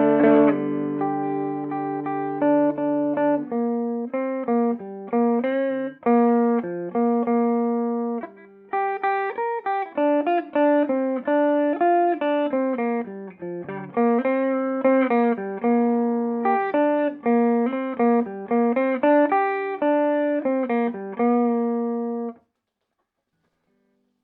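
Clean electric guitar played through a Peavey Bandit 112 TransTube combo amp on its clean channel in classic mode. A chord rings out for a few seconds, then a melodic line of picked single notes and two-note shapes follows. The playing stops suddenly near the end.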